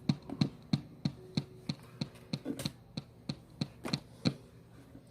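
A run of short, sharp clicks, about three a second, over a faint steady hum. The clicks stop a little past four seconds in.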